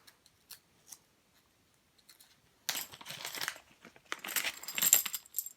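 A bag of small game-piece stands being opened by hand, the stands rattling and clinking against each other, starting about two and a half seconds in.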